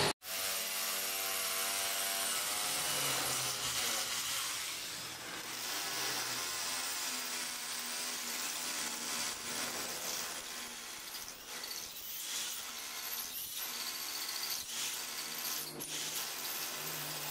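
Electric hammer drill running steadily as it bores into a concrete floor.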